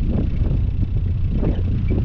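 Car driving: an uneven low rumble of road and wind noise.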